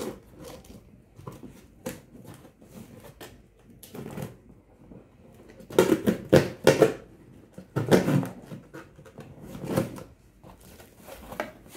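A utility knife slitting packing tape on a cardboard box: irregular scratching and clicking of the blade on tape and cardboard, with several louder rasping rips in the second half.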